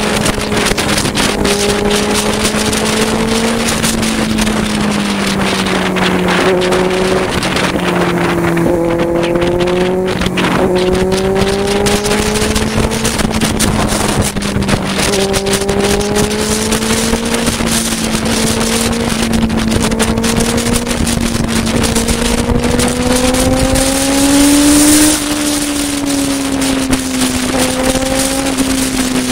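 Benelli 600i inline-four engine running at steady highway speed, its note rising and falling gently with the throttle over a constant rush of wind and road noise. A short louder rush of wind comes near the end.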